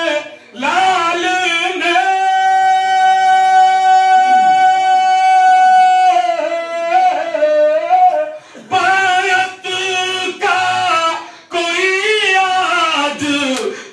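A man's voice chanting a line of Urdu verse in a sung, melodic style through a microphone and loudspeakers, holding one long high note for about four seconds, then shorter sung phrases with brief breaks for breath.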